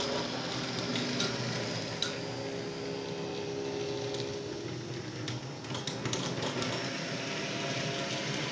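H0-scale model trams running, their small electric motors humming with a steady whir, with scattered light clicks.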